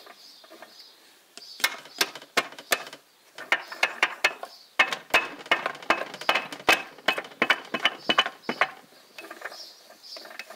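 Steel gears and pinions in the open six-speed gearbox of a U445 tractor turned by hand, giving rapid, irregular metallic clicks and rattles of gear teeth that start about a second and a half in and thin out near the end. Second gear is engaged on the repaired 2-3 shift fork while the third-gear pinion spins free, as a check that the fork engages one gear without locking the other.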